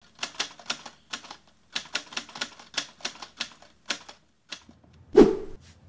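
Typewriter keystrokes clacking in an irregular run, a typing sound effect laid over the title card, then one single louder thump about five seconds in.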